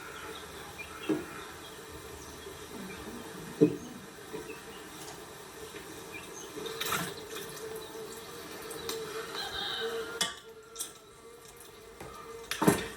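Kitchen work sounds: water running from a tap, with about five sharp knocks spread through, the loudest about three and a half seconds in and just before the end.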